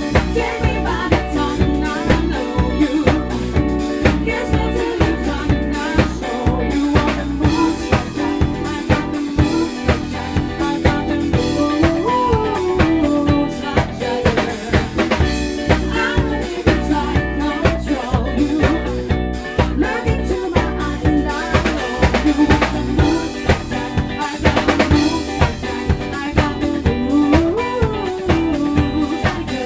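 A live band playing a song: a drum kit keeps a steady beat on snare and bass drum under bass guitar, electric guitar and keyboard, with women singing the melody.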